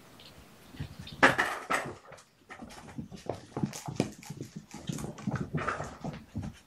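Kittens playing and moving about on a carpeted floor: a run of short rustles, scuffles and light knocks against toys and objects, loudest about a second in.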